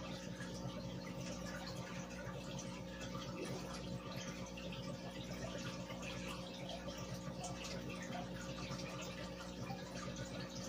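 Aquarium air bubbles rising and breaking at the water surface, a steady trickling and bubbling, over a constant low hum.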